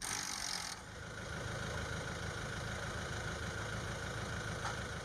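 An engine running steadily with a low rumble, after a brief burst of hiss in the first second.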